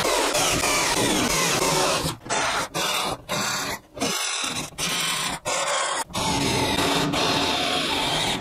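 Cordless drill boring holes through a sheet-metal chassis panel, the bit grinding through the metal with a wavering high scrape. From about two seconds in it runs in short bursts, stopping and restarting several times.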